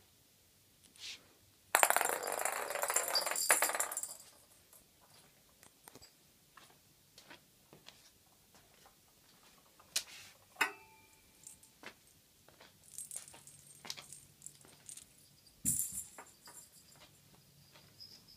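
A loud jingling rattle for about two seconds, followed by scattered light clicks and taps, with a sharper knock about ten seconds in and a dull thump near the end.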